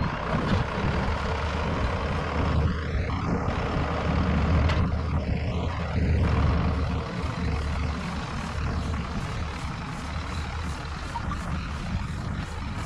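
John Deere 7710 tractor's six-cylinder diesel running steadily as it pulls a trailed field sprayer past, a little quieter in the second half.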